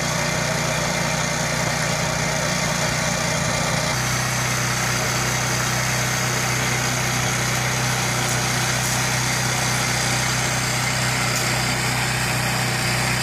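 Small gasoline engine of a trailer-mounted mortar mixer running steadily while the mixer churns and bags of mortar mix are emptied in; the engine note steps down slightly about four seconds in.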